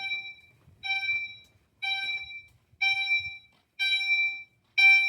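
Multitone fire alarm sounding its continuous-chime setting: a bright, steady-pitched chime tone pulsing about once a second without a break, each pulse about half a second long, growing louder.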